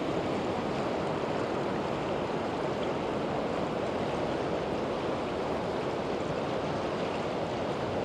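Steady rush of a river running high and fast.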